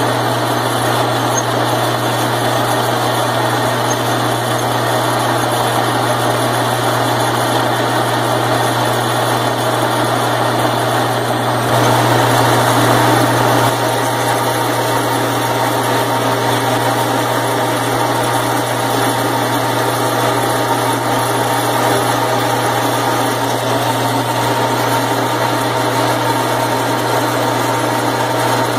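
A drilling machine running steadily as its cutter bores a hole through thick steel plate: a constant motor hum with cutting noise over it, a little louder for about two seconds near the middle.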